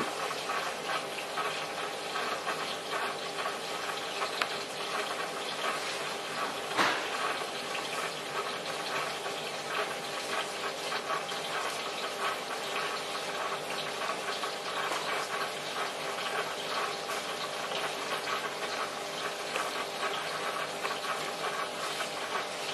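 Marine sump aquarium running: a steady rush and trickle of circulating water, with one short click about seven seconds in.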